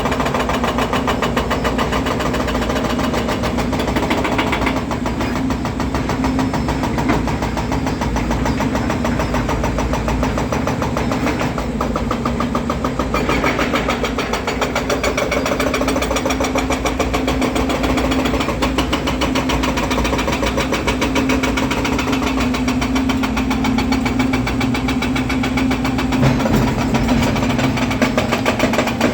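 Volvo EC300DL excavator's diesel engine running steadily with a constant drone, its note shifting slightly a couple of times as the load changes.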